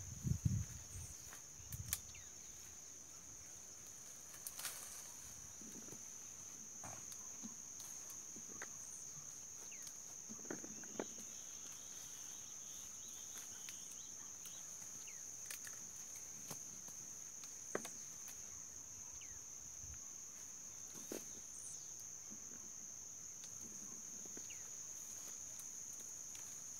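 Insects chirring steadily in one continuous high tone, with scattered small clicks and rustles of twigs and fruit being picked by hand from a red mombin tree, and a few soft thumps near the start.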